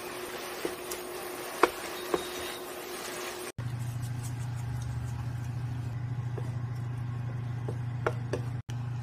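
Wooden chopsticks clicking a few times against a ceramic-coated wok as vegetables are stirred, over a faint hiss. A few seconds in, a steady low hum from the induction cooktop starts and runs on, with a couple more chopstick clicks near the end.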